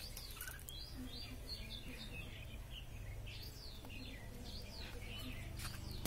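Sparrows chirping: a steady run of short, quick chirps, many overlapping, over a steady low rumble.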